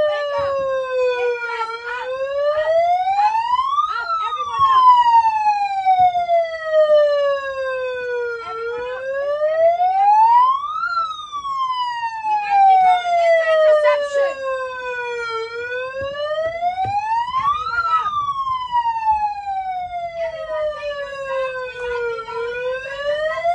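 Alarm siren wailing on a slow cycle, each wail rising for about two seconds and sinking for about four and a half, repeating roughly every seven seconds. It is sounded as a warning of a feared imminent attack or interception.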